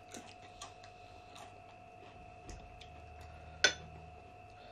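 Eating at the table: scattered small clicks and ticks of chewing and hands or utensils on a plate, with one sharp click about three and a half seconds in, over a faint steady tone.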